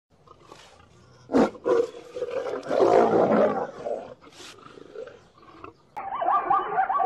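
A lion roaring, strongest about three seconds in and then fading. About six seconds in, a zebra starts a run of short, repeated barking calls.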